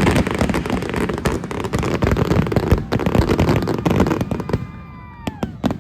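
Fireworks display: a dense run of crackling and banging, thinning out after about four and a half seconds to a few separate sharp cracks.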